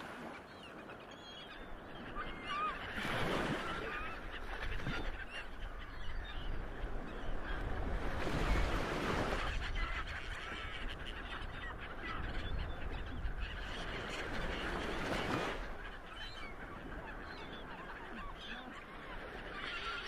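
Waves washing onto a shore in slow surges, about three in all, with many birds calling over them.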